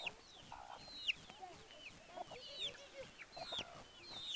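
A flock of chickens calling while being fed: many short, high chirps that fall in pitch, several a second, over scattered lower clucks.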